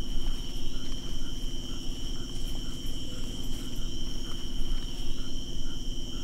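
Rainforest insect chorus: a steady high-pitched trill that holds unbroken throughout, with a soft short note repeating about twice a second and a low rumble underneath.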